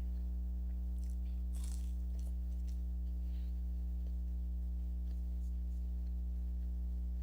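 Faint chewing and biting of fast food, with a few short crunches and clicks, the clearest about a second and a half in, over a steady low hum.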